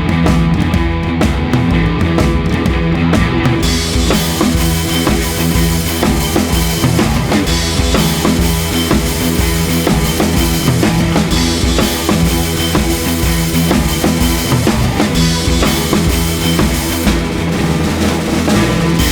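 Rock-style background music driven by a drum kit with a steady beat; the cymbals and high end come in about four seconds in.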